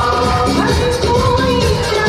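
Live band music with a steady beat and held melodic lines: an instrumental passage of a Hindi film song.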